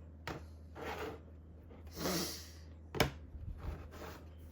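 Light handling of small plastic model-kit parts on a workbench: a few brief rubs and a breathy sniff, then a sharp click about three seconds in and a few small ticks. A steady low electrical hum runs underneath.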